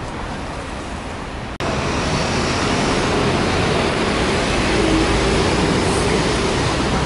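Steady city traffic noise from a busy avenue, a continuous rumble and hiss with no clear single vehicle. About a second and a half in it breaks off for an instant and comes back louder.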